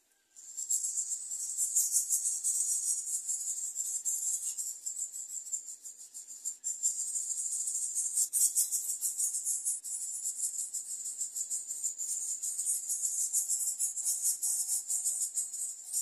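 Greater coucal nestlings begging as the parent arrives: a continuous high-pitched hissing rattle made of very rapid ticks, starting suddenly about half a second in and dipping briefly around six seconds.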